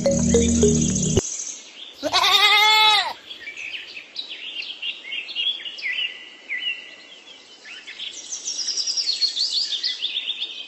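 Background music cuts off about a second in. A single bleat, rising then falling, follows for about a second, then small birds chirp and twitter in quick runs of short calls.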